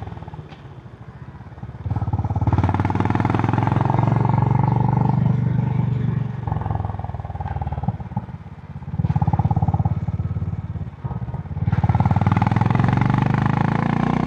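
Honda H'ness CB350's air-cooled single-cylinder engine through its stock exhaust, with a thumpy, bassy note. The throttle is closed at first, then opens about two seconds in, eases off and opens again a few times, as when riding through bends.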